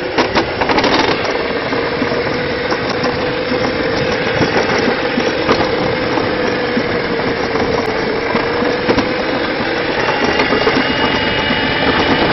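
Summer toboggan sled running fast down a stainless-steel trough track: a steady, loud rolling rumble with a faint wavering hum.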